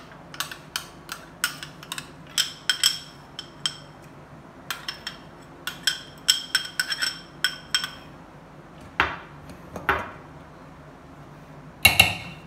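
Metal spoon and glass bowl clinking and tapping against a steel cooking pot as thick yogurt is scraped out of the bowl: two quick runs of light, ringing clinks, then a few duller knocks and one loud knock near the end.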